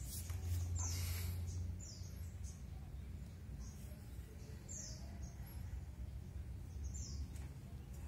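Small birds chirping: a few short, high chirps that fall in pitch, a couple of seconds apart, over a low steady hum.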